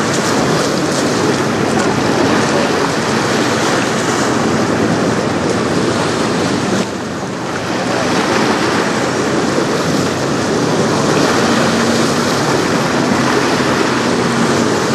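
Strong wind buffeting the microphone over choppy, wave-covered river water, a steady loud rush that dips briefly about seven seconds in. A faint steady hum joins in during the last few seconds.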